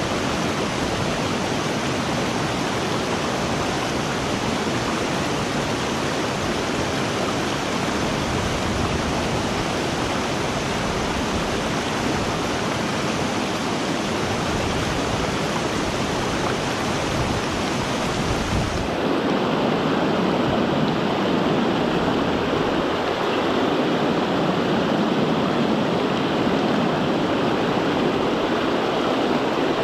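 River water rushing steadily over rocks. About two-thirds of the way in, the sound changes abruptly to a fuller, duller rush, as if cut to another stretch of the river.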